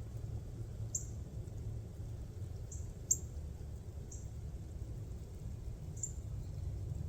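A small bird's short, high-pitched chip calls, repeated irregularly about once a second, over a steady low rumble.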